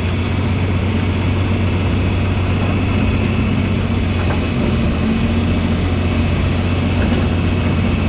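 Tractor engine running steadily at a constant speed, with a strong low hum.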